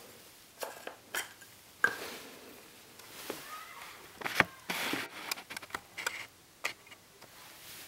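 Handling noise from a Canon EF 50mm f/1.8 II lens being turned over in the hands: scattered light clicks and short rubs of its plastic barrel and mount against fingers. The sharpest clicks come about two and four and a half seconds in, with a run of smaller clicks after.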